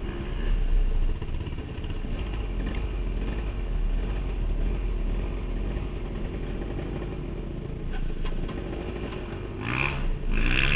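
KTM dirt bike engine running steadily, heard from the rider's own bike. A short, louder sound about ten seconds in.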